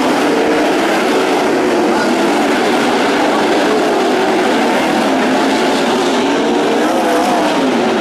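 A pack of 360 sprint car V8 engines racing around the track. Several engine notes overlap, each rising and falling as the cars go in and out of the turns.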